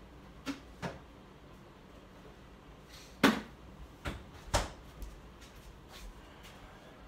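A series of separate knocks and clunks of things being handled in a kitchen. The loudest comes about three seconds in, with a strong second one a little later and quieter taps either side.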